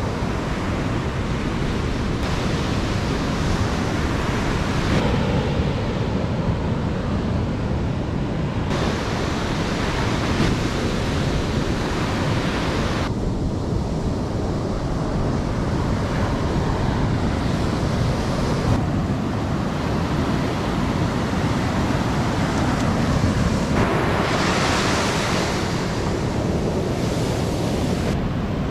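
Ocean surf breaking and washing up a sandy beach, a steady roar of waves with wind rumbling on the microphone. The tone of the roar shifts abruptly several times, and it turns brighter and hissier a little before the end.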